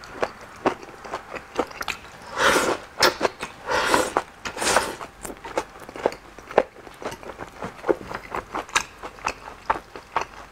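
Close-up eating of wide oil-splashed noodles (youpo mian): wet mouth clicks and smacking while chewing, with three loud slurps between about two and five seconds in.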